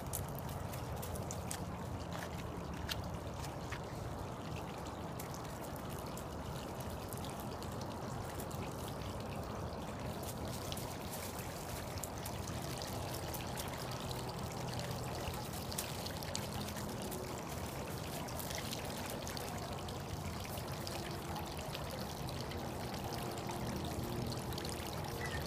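Steady running water, with faint scattered crackles over it.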